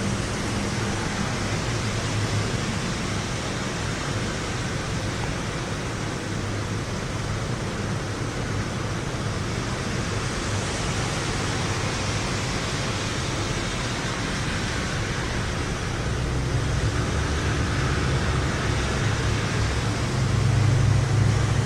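Steady hiss of heavy rain during a thunderstorm. A low rumble comes in over the rain in the last few seconds and grows louder near the end.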